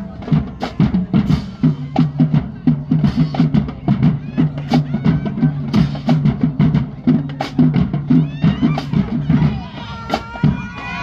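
Marching band drumline playing a fast, driving cadence, with dense drum strikes over sustained low notes. Near the end a high sliding tone comes in over the drumming.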